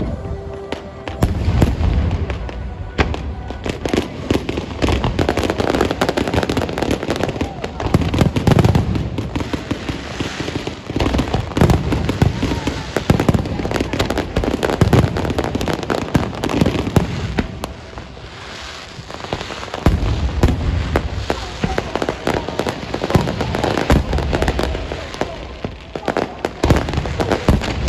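Fireworks going off in a dense, continuous barrage of rapid crackling pops and low booms, with a short lull about two-thirds of the way through.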